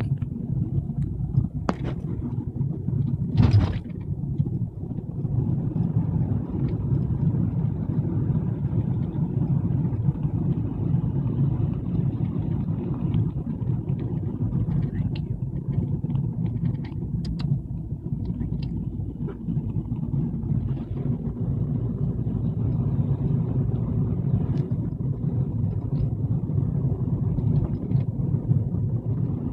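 Steady low rumble of a road vehicle's engine and tyres heard from inside the cab while driving slowly in traffic, with a couple of sharp knocks in the first few seconds, the louder one about three and a half seconds in.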